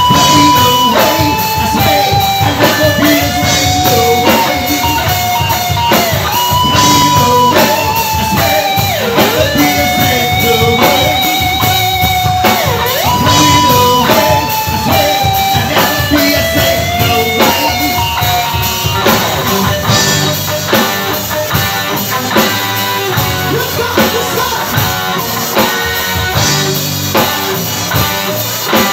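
Live band playing: electric guitar and drum kit under a held, wavering melody line, which gives way to choppier playing about twenty seconds in.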